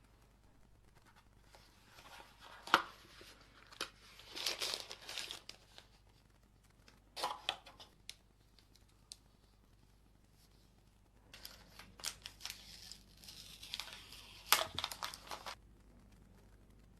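Phone packaging being torn and crinkled by hand in several bursts, with a few sharp clicks and taps, the loudest about three seconds in and near the end.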